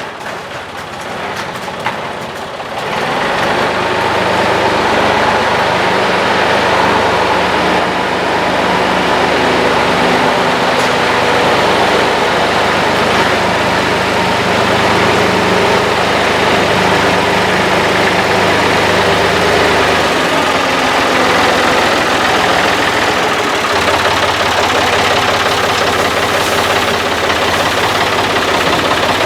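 An engine running steadily, coming up loud about three seconds in; its deep low note drops out briefly around twenty seconds in and again just before the end.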